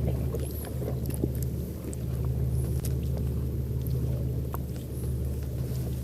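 Steady low engine hum, with scattered faint clicks and taps over it.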